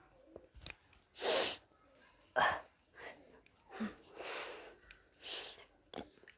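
A woman burping repeatedly after gulping carbonated soda: a series of short, airy burps and puffs of breath about a second apart, the loudest two about a second and two and a half seconds in.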